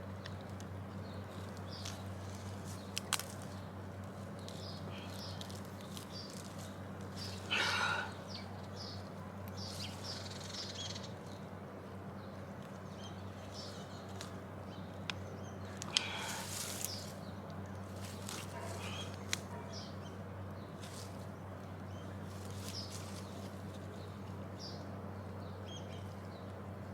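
Birds chirping now and then over a steady low hum, with a few light clicks and two louder, brief sounds about eight and sixteen seconds in.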